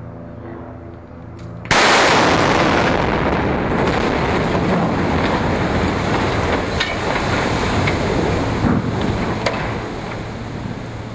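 Explosive demolition charges going off on a bridge. A faint crack comes just before a sudden loud blast about two seconds in, then a long rumble with a few sharp cracks in it slowly dies away.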